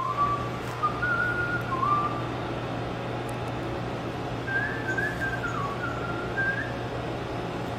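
A man whistling a short tune in two phrases, clear gliding notes with a pause of a couple of seconds between them, over a steady low machine hum.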